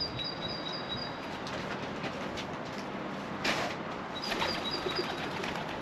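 A small bird chirping in a quick, evenly spaced series of high notes, about six a second, at the start and again in the second half, over outdoor background. A short whoosh of noise comes about halfway through.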